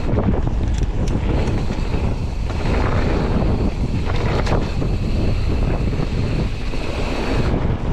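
Wind buffeting the microphone of a mountain bike ride, a steady loud rumble, with a few brief clicks and knocks from the bike on the trail.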